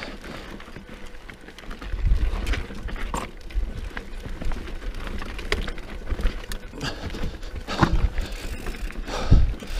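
Mountain bike rattling over rocky singletrack: tyres crunching on dirt and rock, with sharp knocks and clunks as the bike hits rocks, growing louder about two seconds in.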